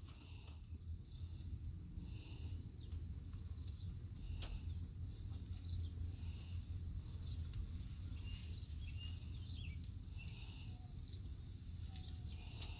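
Outdoor birds calling in the background, a short chirp repeating about every two seconds, over a steady low hum.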